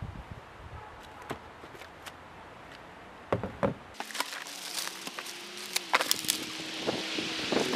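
Hands handling bike rack parts in a cardboard box, with scattered knocks and clicks. From about four seconds in, plastic wrapping crinkles sharply as it is pulled at.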